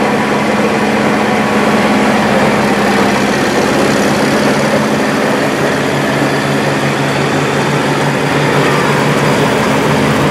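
Engine of a 1964 International Harvester 93 self-propelled combine running steadily as the machine drives slowly past and away. Its note shifts slightly lower about halfway through.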